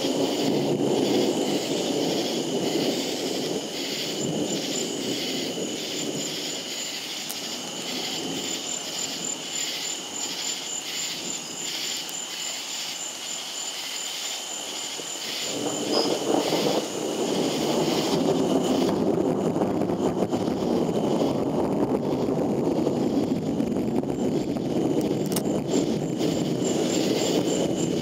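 A chorus of night insects chirping in a steady pulsing rhythm, over the low noisy rumble of a thunderstorm that eases off and then swells up again about sixteen seconds in.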